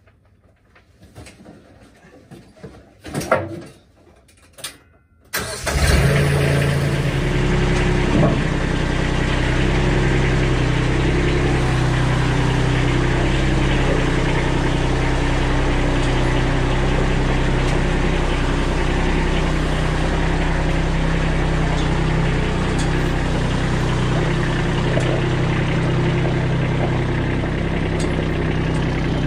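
A few knocks and clicks, then the Kubota B2601 compact tractor's three-cylinder diesel engine starts suddenly about five seconds in and runs steadily.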